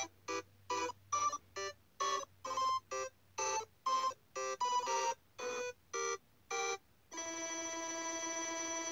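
Music: a melody of short, separated notes, two or three a second, then about seven seconds in a single steady held tone begins and sustains.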